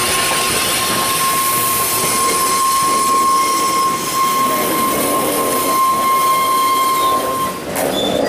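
Freight train rolling on the rails, with a steady high-pitched wheel squeal held for about seven and a half seconds before it stops abruptly.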